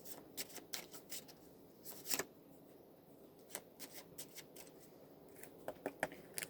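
Tarot cards being shuffled by hand: quiet, irregular flicks and clicks of the cards, with a louder snap about two seconds in.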